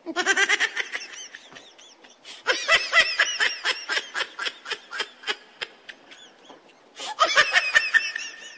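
Rapid, high-pitched cackling laughter in three bursts, the longest in the middle; a laughing sound effect added in editing.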